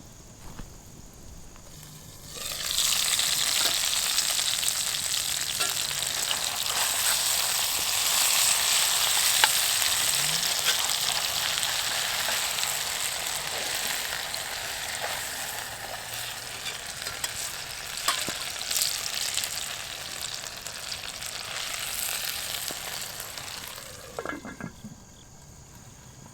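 Sliced potatoes frying in oil in a cast iron skillet, with a loud, crackling sizzle. The sizzle starts abruptly a couple of seconds in and dies down near the end, and a few sharp clicks and scrapes are heard along the way.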